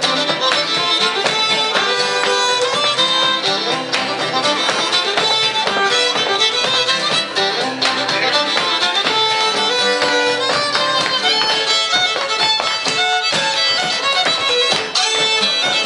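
Live Cajun string band playing a dance tune, the fiddle leading over guitar and upright bass.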